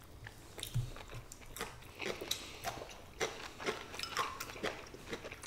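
Two people chewing and biting mouthfuls of stir-fried egg noodles with beef and fresh greens, with irregular small clicks and smacks throughout.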